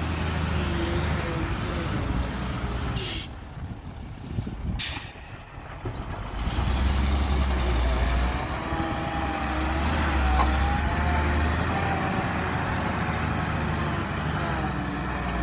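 Heavy diesel earthmoving machinery running, its low engine drone easing off for a few seconds and then rising again louder. Two short hisses come about three and five seconds in, and a wavering squeal runs through the second half.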